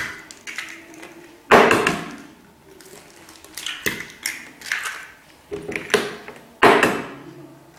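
Eggs being cracked on a plastic blender jar and dropped in: two loud knocks, about a second and a half in and near the end, with lighter taps between.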